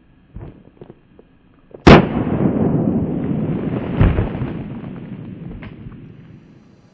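A single very loud blast about two seconds in, followed by a long rolling rumble that fades away over about five seconds, with a second thud in the middle of it.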